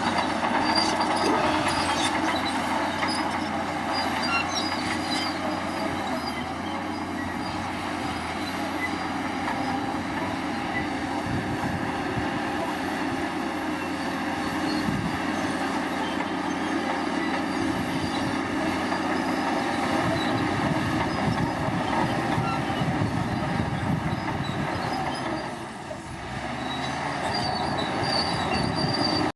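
Crawler bulldozer at work: diesel engine running under load, with its steel tracks squealing and clanking. The sound is continuous and eases briefly near the end.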